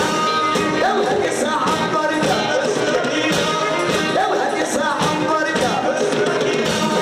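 Live Moroccan chaabi music: a male singer backed by violins and hand drums.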